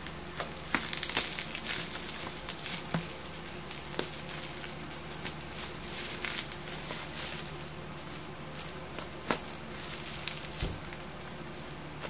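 Packaging being handled and opened: crinkling and rustling with scattered sharp clicks, busiest in the first few seconds.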